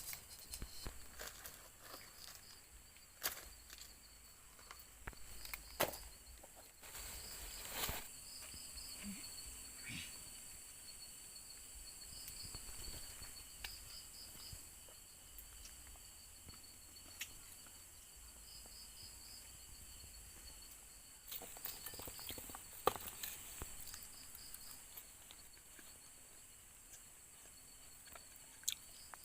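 Crickets chirping steadily, a high pulsing trill, with scattered rustles and sharp clicks close by.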